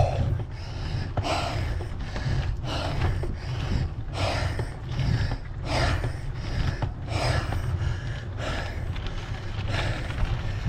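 A cyclist breathing heavily, hard rasping breaths about one a second, from all-out effort on a steep climb on a mountain bike. A steady low rumble runs underneath.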